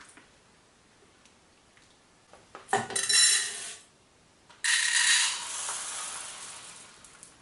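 Metal inner pot of a small electric rice cooker clattering and clinking as it is handled and set in place. There are two sudden bursts, the first about three seconds in, the second about a second and a half later, ringing on and fading over a couple of seconds.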